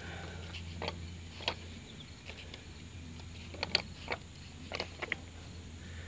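Faint outdoor ambience with insects, broken by about ten short clicks and knocks.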